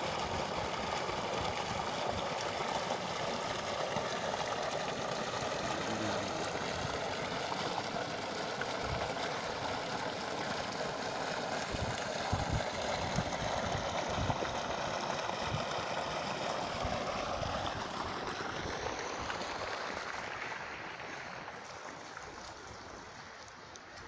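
Muddy water gushing steadily from a submersible borehole pump's discharge pipe and splashing into a pool, fading over the last few seconds.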